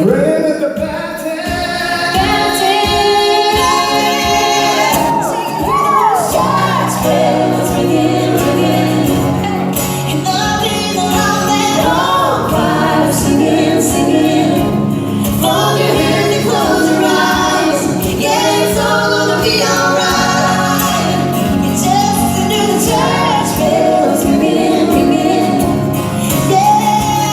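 Acoustic country music: a woman singing, joined by other voices in harmony, over acoustic accompaniment with held low notes.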